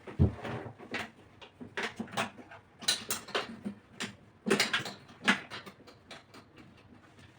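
Irregular knocks, clicks and clatter of objects being handled and set down, bunched around the middle.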